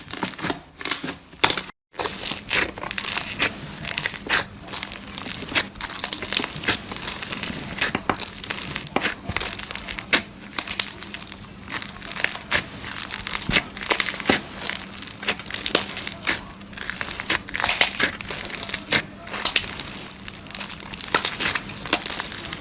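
Slime being worked and pressed, giving a dense run of small crackles and pops, with a brief dropout about two seconds in.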